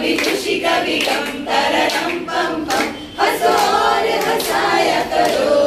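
A small group of women singing a song together, one of them into a handheld microphone.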